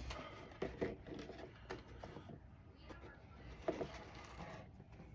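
Faint rustling and handling of a cardboard box and its packaging being opened, with a few irregular sharp clicks and knocks.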